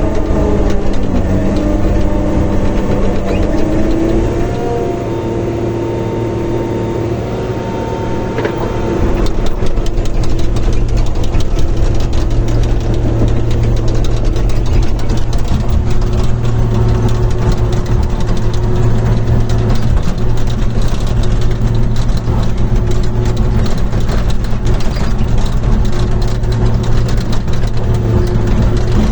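John Deere 850 crawler dozer's diesel engine running, its pitch shifting in the first few seconds and easing off, then louder and steady from about nine seconds in with a dense clatter.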